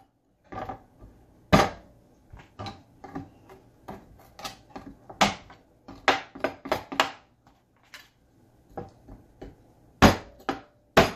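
Meat cleaver chopping the knuckle ends off chicken drumsticks on a plastic cutting board: irregular knocks, with a few heavy single chops among many lighter taps.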